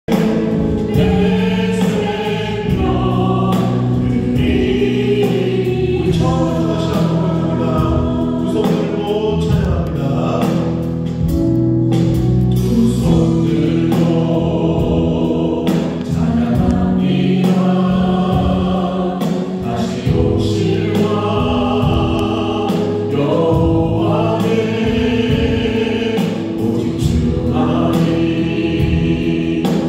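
A church praise team singing a gospel song in chorus, backed by keyboard, drums and bass guitar, with a steady beat.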